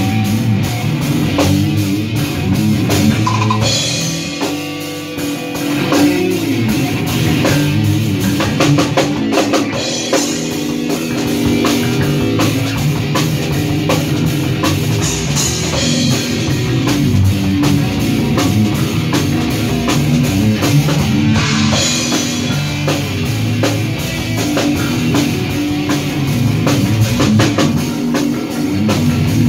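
A band playing loud heavy rock live: electric guitars over a drum kit, with continuous drumming and cymbals.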